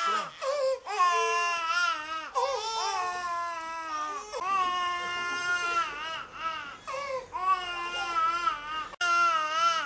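Young children crying in long, wavering, high-pitched wails that go on almost without pause.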